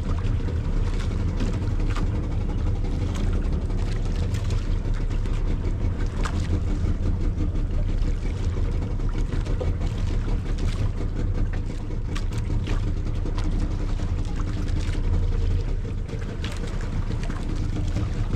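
Outrigger fishing boat's motor running steadily under way, with water rushing and splashing along the hull and outrigger floats.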